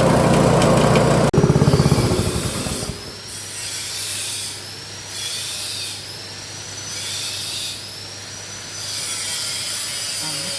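Small engine driving a salt-grinding machine runs steadily, then is switched off about a second in and winds down over a second or so. After that a scraping stroke repeats four times, about every second and a half.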